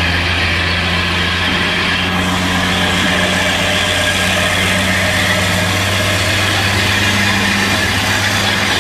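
Class 52 'Western' diesel-hydraulic locomotive D1013 'Western Ranger', with its twin Maybach V12 engines, running steadily as it pulls its train away from a station, heard from a carriage window close behind.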